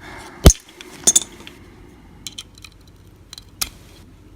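Sharp metallic clicks and clinks of small tools working on a Euro cylinder lock to free its stubborn retaining clip. The loudest snap comes about half a second in, a quick double click about a second in, then several lighter ticks.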